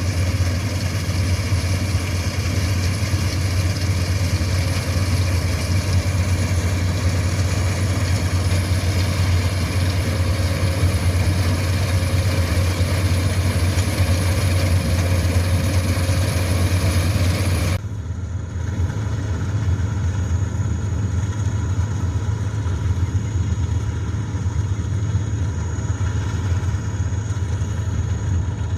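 Lucerne seed harvester running, a heavy steady engine hum under loud machinery noise. About two-thirds of the way through the sound abruptly turns duller and quieter in the highs.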